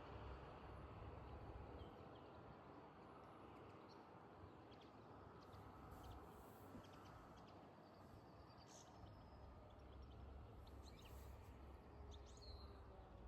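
Near silence: quiet lakeside ambience with a low rumble and scattered short bird chirps, more of them in the second half.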